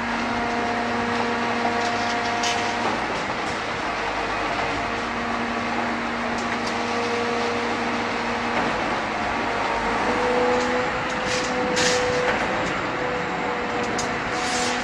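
Truck-mounted Putzmeister M46 concrete pump on a Mercedes-Benz Actros 3344 running while pumping concrete: a steady mechanical drone with whining tones that shift in pitch a few times, and a couple of faint clicks.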